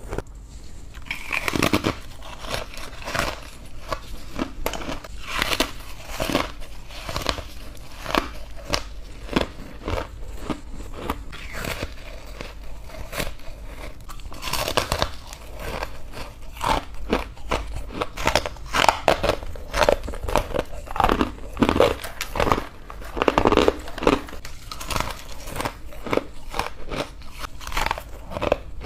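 Soft, powdery freezer frost being bitten and chewed close to the mouth: crunch after crunch in an irregular, crackling stream, busiest in the second half.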